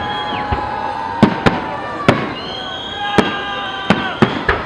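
Display fireworks bursting overhead: about seven sharp bangs at uneven intervals, over steady held tones.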